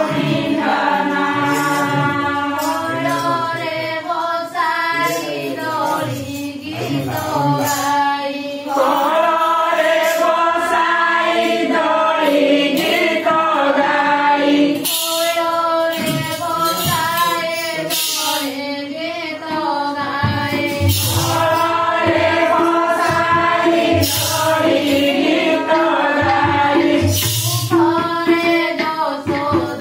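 A group, women's voices prominent, singing a Hindu devotional bhajan together in unison, with sharp clacks from hand-held clappers keeping time.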